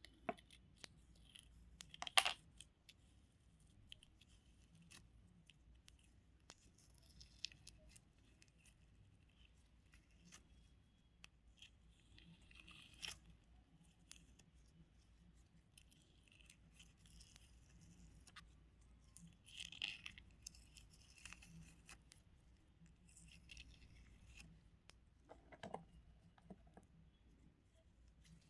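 Soft close-up handling of craft materials: scattered small clicks and taps with short crinkly rustles, the loudest crackles about two seconds in, around thirteen seconds and around twenty seconds.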